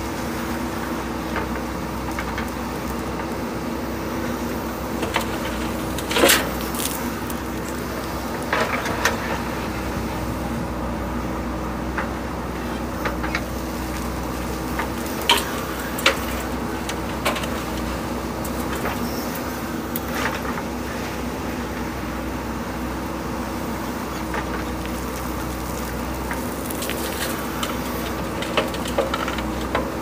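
JCB 3DX backhoe loader's diesel engine running steadily under load as the backhoe digs and loads, with several sharp knocks and clatters of stone and gravel against the steel bucket and the tipper's body.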